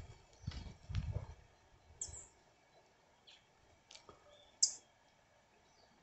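Green-headed tanagers giving short, very high chirps every second or so, the loudest a little after the middle. A low rumble sounds about a second in.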